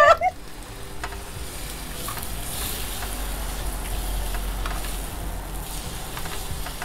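Sliced pork sizzling steadily on a round Korean barbecue grill pan over a portable gas stove, growing a little louder as fresh raw slices are laid on.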